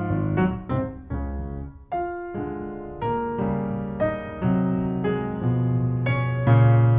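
Background piano music: a gentle melody of struck notes over low sustained bass notes.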